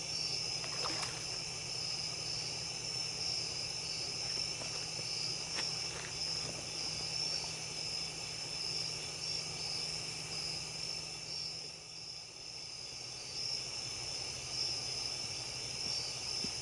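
A late-summer night chorus of insects, a steady high trill that pulses slightly, with a low steady hum underneath.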